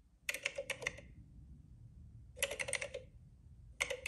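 Computer-keyboard typing sound effect: three quick runs of keystroke clicks, one just after the start, one about halfway and one near the end, heard through a tablet speaker as a logo's text is typed out.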